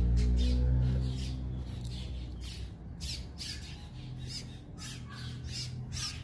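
Sulcata tortoise biting and chewing pieces of bell pepper and starfruit, crisp crunches coming about twice a second. A low hum is loudest in the first second and then fades.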